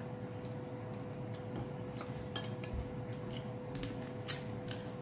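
Cooked lobster shell being cracked and picked apart by hand: scattered sharp clicks and crackles, the loudest a little after four seconds in, over a faint steady hum.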